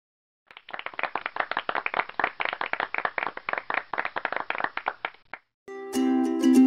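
Applause sound effect of a small group clapping, starting about half a second in and cutting off suddenly after about five seconds; it rewards the correct quiz answer. Music starts near the end.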